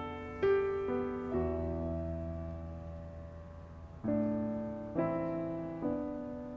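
Slow, gentle piano music: chords struck about once a second or two, each left to ring and fade before the next.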